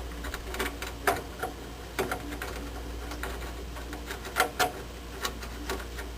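Irregular clicks and taps of a screw being driven by hand into the metal mounting bracket of a furnace pressure switch, over a steady low hum.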